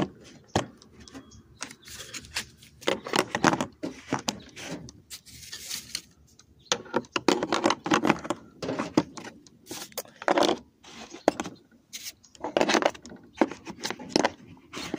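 Small metal hand tools from a tool kit clinking and clattering as they are handled and fitted back into their case, in irregular clicks and rattles.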